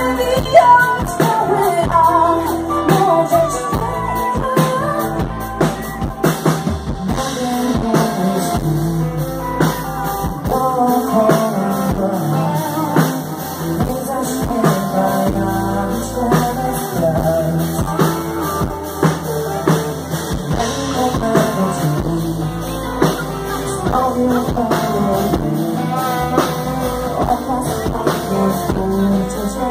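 Live rock band playing: a woman singing into a microphone over electric guitar, bass guitar and a drum kit.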